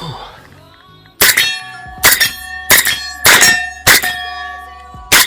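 Six shots from a Century Arms VSKA Draco 7.62×39 AK pistol fitted with a SilencerCo Omega 36M suppressor, fired at an uneven pace of roughly one every half second to second. Each shot is followed by a steel target ringing with a clear metallic tone.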